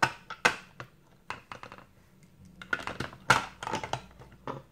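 Hard plastic toy track pieces and toy vehicles clicking and clacking against each other in scattered knocks, with a quick run of clacks a little past the middle.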